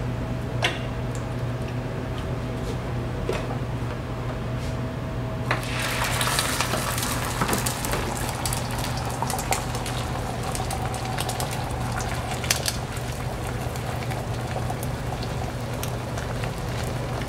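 Hot flat-top griddle with a steady low hum underneath; about five seconds in, a loud sizzle starts as food goes onto the hot, oiled griddle, then settles into continuous frying crackle and spatter.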